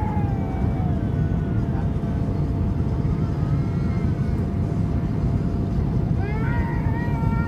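Steady low rumble of an airliner cabin in flight, with a faint steady hum over it. A high, wavering cry sounds near the start and again about six seconds in.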